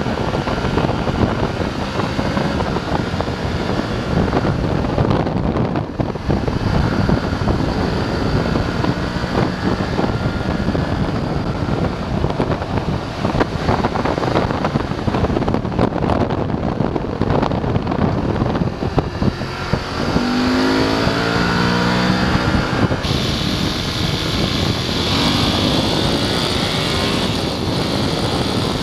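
BMW F850 GS motorcycle's parallel-twin engine running under way, with wind rush on the microphone. About twenty seconds in the revs climb and fall as the bike accelerates.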